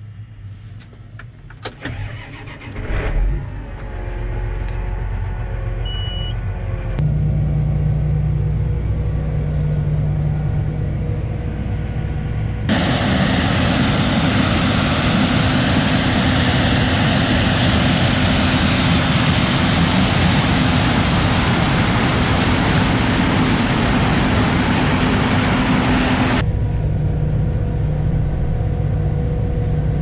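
John Deere tractor engine running steadily, heard from inside the cab, with a few clicks and knocks near the start. For about fourteen seconds in the middle, a much louder even rushing noise cuts in over it and then cuts off suddenly.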